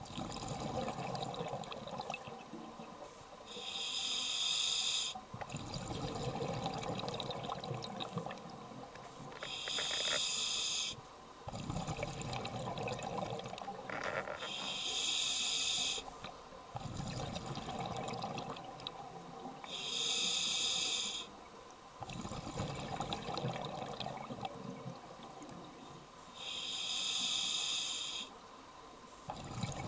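Scuba diver breathing through a regulator: five hissing inhales, one every five or six seconds, each followed by a longer low rush of exhaled bubbles.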